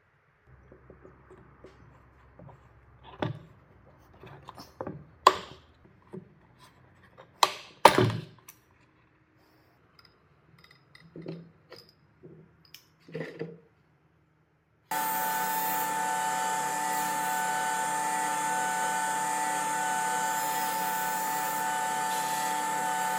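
Plastic pails being handled: a lid and a wire handle knock and clunk several times, loudest about eight seconds in. Then, from about fifteen seconds in, a table saw starts abruptly and runs steadily with a clear, even whine.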